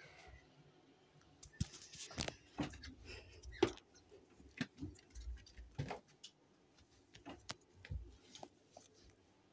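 Handling noise: scattered soft knocks, taps and rustles at irregular intervals as plush toys and puppets are picked up and set down.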